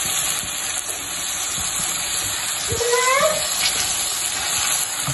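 Boneless chicken pieces and sliced onions frying in oil in a stainless-steel pan: a steady sizzle, with a wooden spoon stirring through them.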